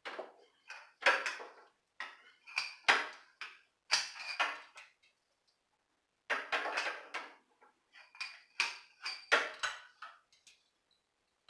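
Steel socket-set tools clinking and clattering, a socket, ratchet and breaker bar handled and fitted together, in two spells of sharp metallic clinks with a pause of about a second and a half between them.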